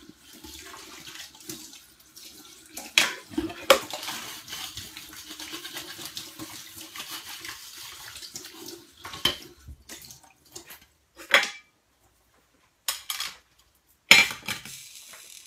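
A tap running at a sink while small metal künefe plates are washed, with sharp metal clanks and knocks. The water stops about nine seconds in and a few more clatters follow, the loudest near the end as a wet plate is set down.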